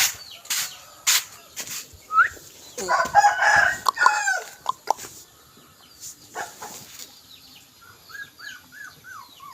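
A rooster crowing once, about three seconds in, after a few sharp knocks; near the end, a run of short, high, falling chirps.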